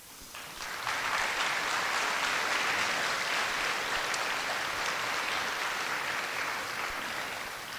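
Audience applauding. It builds over the first second, holds steady, then tapers a little near the end.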